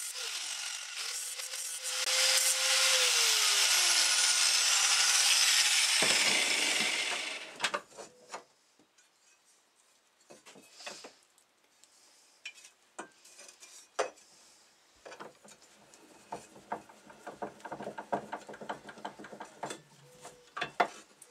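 Angle grinder's abrasive disc grinding the cutting edge of a steel lawn mower blade clamped in a vise, louder from about two seconds in; about three seconds in the grinder is switched off and its whine falls in pitch as it spins down, the grinding dying away near the eight-second mark. After that come scattered clicks and knocks of the blade being handled in the vise and the vise being worked.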